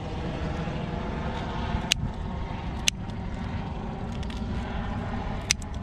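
Scissors snipping through a green crab's shell, three sharp clicks, the second about a second after the first and the third some two and a half seconds later, over a steady low background rumble.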